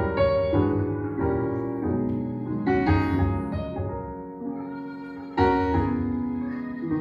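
Slow keyboard music: sustained chords, with a new chord struck every second or so and a stronger one about five and a half seconds in.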